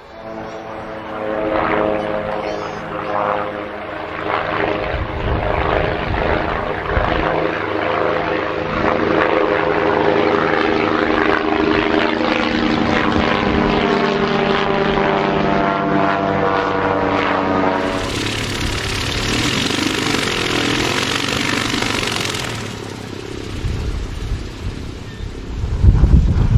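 Propeller aircraft's piston engine running steadily, its note creeping up in pitch; after about eighteen seconds it gives way abruptly to a loud rushing noise for a few seconds, and near the end low wind rumble on the microphone.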